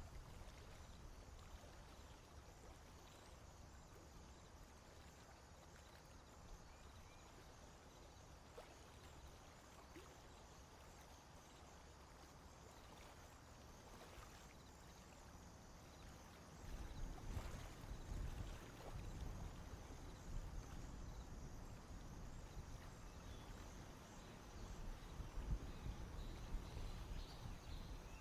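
Faint outdoor swamp ambience: a steady soft hiss, joined a bit past halfway by a low rumble that stays to the end, with a few faint bird chirps near the end.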